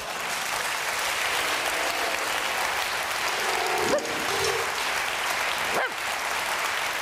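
Studio audience applauding steadily after a punchline.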